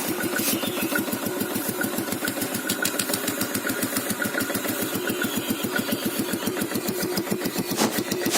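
Exhaust of a 2011 Yamaha Vega ZR's carburetted single-cylinder four-stroke engine idling steadily, with an even, rapid pulsing beat.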